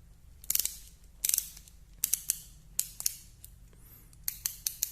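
Black+Decker ratchet screwdriver ratcheting: the pawl clicks in short bursts of rapid clicks, about six in all, as the handle is worked back and forth. The bit turns one way while the ratchet slips and clicks in the other.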